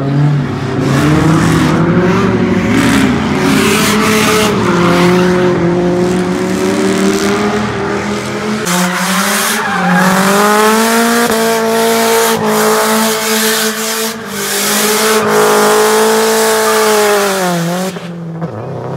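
A car spinning donuts: the engine is held at high revs and the tires squeal and skid over a steady, held engine note. The revs sag sharply and climb back near the end.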